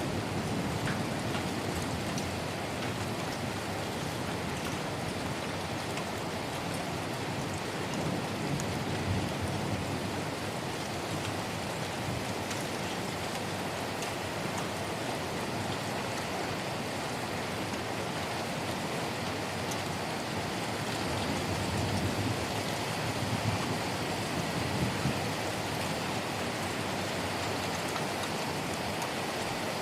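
Heavy rain falling steadily: a continuous hiss of rain with scattered drop ticks.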